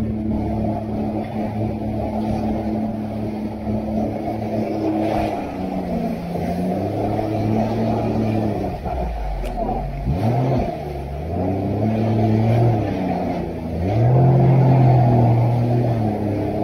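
Jet ski engine running under way, its pitch dropping and climbing again several times as the throttle is eased off and opened up, with a deep dip about ten seconds in and a higher, louder stretch near the end.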